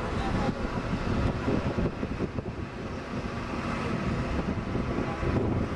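A tour bus on the move: engine and road noise, with wind buffeting the microphone so the rumble rises and falls unevenly.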